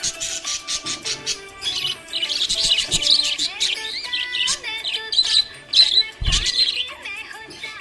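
Budgerigars chirping, a dense run of quick high chirps and trills overlapping one another, with a short low thump about six seconds in.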